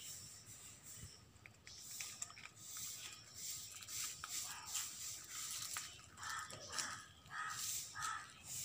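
Faint outdoor ambience with a steady high hiss, then a bird calling four times in quick succession, about half a second apart, starting about six seconds in.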